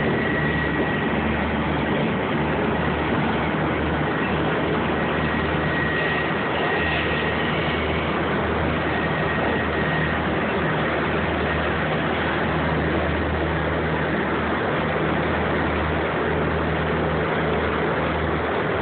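Motorboat engine running steadily under way, a low even hum, under a constant rushing noise.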